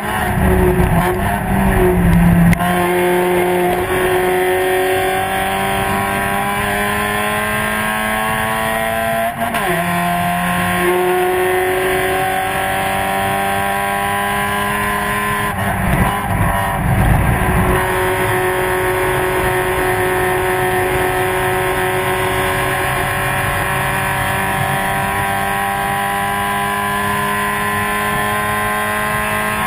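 Spec Miata race car's four-cylinder engine heard onboard at high revs, its pitch climbing slowly as it pulls through the gears, with a gear change about nine seconds in that drops the pitch before it climbs again. Loud low rumbling at the start and again around sixteen to eighteen seconds in.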